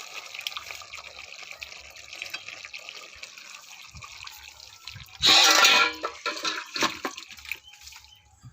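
A pot of thick fish-head curry hissing and bubbling on the stove, with a loud clatter about five seconds in as the pot is handled to take it off the heat. The hiss dies away near the end.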